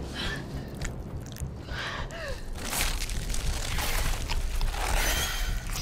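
Horror-film sound design: a low rumbling drone under strained gasps and crunching effects, which grow denser and louder from about the middle on.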